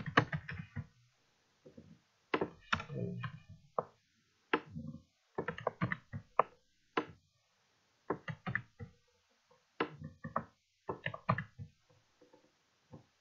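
Computer keyboard being typed on, short runs of sharp key clicks separated by pauses.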